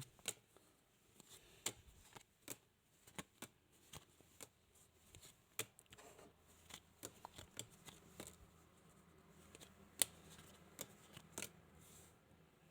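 Playing cards being dealt one by one onto a table: a faint, irregular run of short card clicks and flicks, one or two a second, with a louder snap about ten seconds in.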